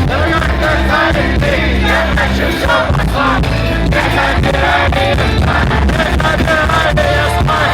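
Loud rock music with a singing voice, drums and heavy bass.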